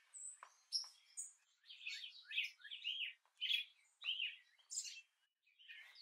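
Birds chirping: a quick run of short, high, down-slurred chirps, several a second, busiest through the middle, with a few sharp ticks before them.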